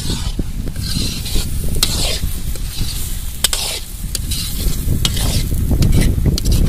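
Thick coconut-masala chicken gravy sizzling in a large iron kadai while a long metal ladle stirs it, with sharp clicks and scrapes of the ladle against the pan several times.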